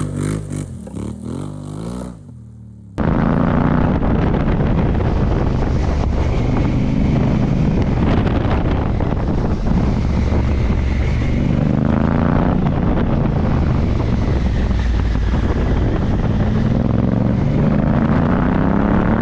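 Motorcycle engine revving, then after a sudden cut the bike riding along with heavy wind noise on the microphone, its engine note rising and falling a few times.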